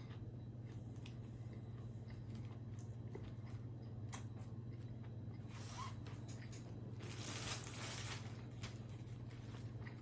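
Faint eating sounds: quiet chewing with scattered small mouth clicks and a brief rustle about seven seconds in, over a steady low hum.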